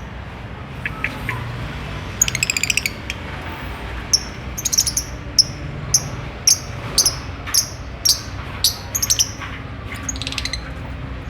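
Lovebirds calling: a quick run of high chirps about two seconds in, then sharp, high chirps repeated about twice a second.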